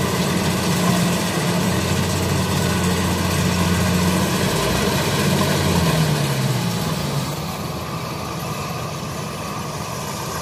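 Rice combine harvester's engine running steadily with a broad mechanical clatter. About six seconds in the engine note drops in pitch and the sound eases off.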